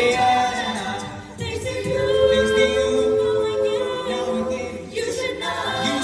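A cappella group of mixed male and female voices singing without instruments, in wordless chords, holding one long chord in the middle and briefly dipping twice.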